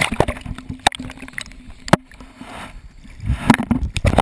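Sea water sloshing and splashing around a GoPro in its waterproof dive housing held at the surface, with sharp knocks and rubbing from fingers handling the housing. A faint steady hum runs under the first half, and the splashing grows louder near the end.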